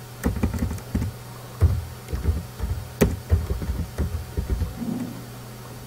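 Keystrokes on a computer keyboard, irregular clicks with a few louder ones, over a steady low electrical hum.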